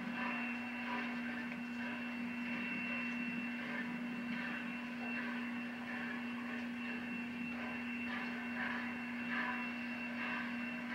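Steady hiss of a steam locomotive standing with steam up, under a constant low electrical hum and a thin high whine, heard through a TV speaker from an old tape.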